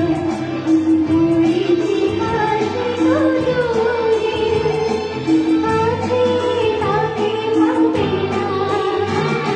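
A female singer singing a Bollywood-style Hindi film song over instrumental accompaniment, with a steady beat and a repeated bass line.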